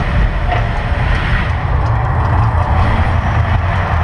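The Mirage volcano show erupting: a loud, steady deep rumble under a rushing wash of noise, from the show's amplified eruption soundtrack and flame effects.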